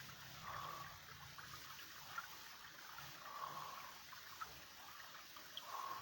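Faint, steady trickling of a small ravine creek, with three brief louder swells about two and a half seconds apart.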